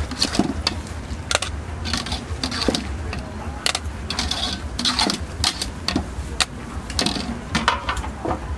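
Stainless steel tongs, cup and strainer clinking and clattering against each other, a run of irregular sharp metallic clinks, over a steady low hum.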